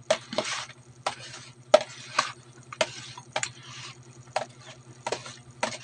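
A metal fork stirring and tossing cut oarfish pieces in a wet vinegar marinade in a basin. It clicks against the basin about twice a second, with wet scraping in between, over a low steady hum.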